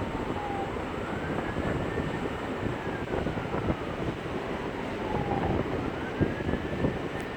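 Steady storm rain noise with a faint emergency-vehicle siren wailing over it, slowly rising and falling in pitch about twice.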